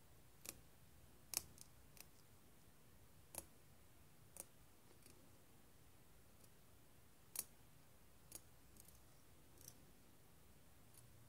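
Thin laser-cut steel sheet parts of a Metal Earth model clicking as fingers bend their tabs and press pieces together. About ten small sharp clicks come at uneven intervals, the loudest about a second and a half in and about seven seconds in.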